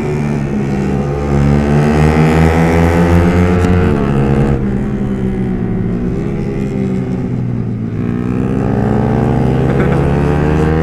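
Yamaha R15's single-cylinder four-stroke engine running hard at high revs on the move, heard from on board. The revs climb, drop sharply about four seconds in as the throttle is eased, then rise again through the second half.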